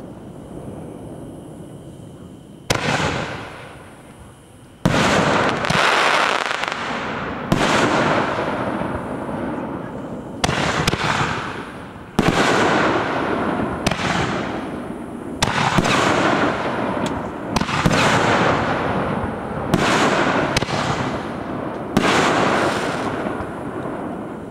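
Aerial fireworks bursting overhead: more than a dozen loud bangs, one every second or two, starting about three seconds in, each trailing off over a second or two.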